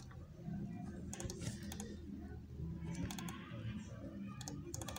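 Pen writing on a workbook page: light scratching and tapping strokes in a few short clusters, over a faint steady hum.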